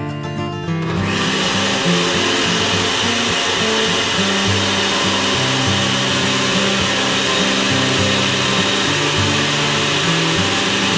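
Cuisinart countertop blender starting up about a second in and then running steadily, puréeing a liquid sauce in its glass jar.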